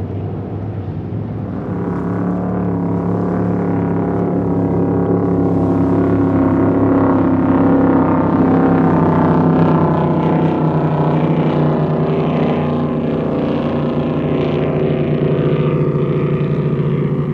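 Big performance powerboat's engines running at speed on the water, swelling over the first couple of seconds, then holding loud with a slight drop in pitch about ten seconds in.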